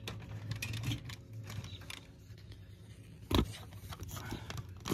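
Steel bracket of a Brinly spring assist being worked into place on a Cub Cadet tractor's rear lift shaft: scattered small metal clicks and scrapes, with one louder knock about three and a half seconds in, over a steady low hum.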